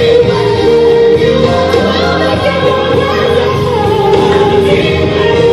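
Gospel worship music with singing, a voice holding long notes over the accompaniment.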